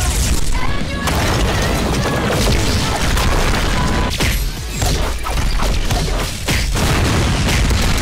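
Animated fight sound effects: a dense run of booms, impacts and crashes over music, with a few short breaks between hits in the second half.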